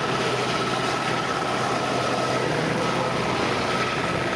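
Westland Sea King search-and-rescue helicopter hovering low: steady rotor and twin-turbine engine noise with a thin, high turbine whine over it.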